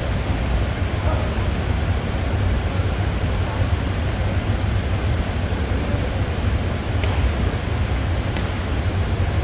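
Indoor badminton hall: a steady low rumble with faint crowd chatter, then two sharp clicks of racket hitting shuttlecock about a second and a half apart near the end as a rally starts.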